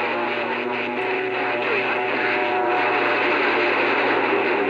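CB radio receiver hiss on an open channel, with faint steady whistling tones and a low hum under the static.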